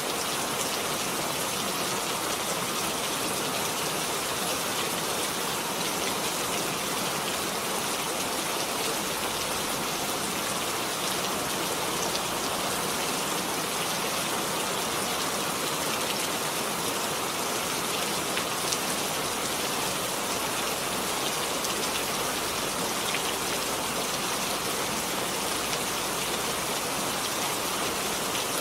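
Steady rain falling, a dense even hiss of many drops pattering on surfaces.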